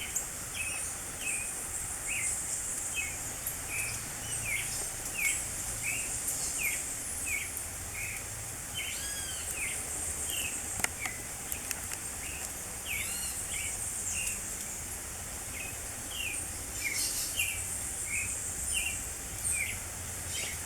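Creamy-bellied thrush (sabiá-poca) calling, a series of short notes repeated about twice a second, over a steady high chorus of insects or other birds.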